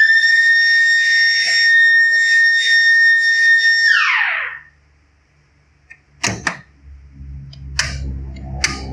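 220-volt motor-driven mini siren sounding as the water-pump no-flow alarm trips: the timer has run out without the pressure switch seeing pressure, the simulated 'water not coming up' condition. It spins up to a loud steady high wail, holds about four seconds, then winds down in falling pitch and stops; a few sharp clicks and a low steady hum follow.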